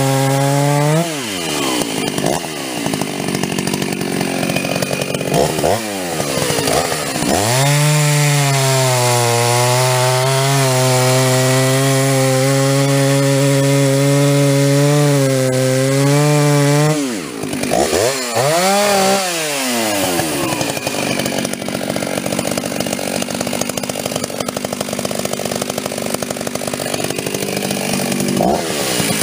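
Two-stroke chainsaw cutting through a log at full throttle, winding down as a cut ends about a second in. A saw then revs up and cuts steadily for about ten seconds, drops off, is revved twice, and another cut runs on to the end.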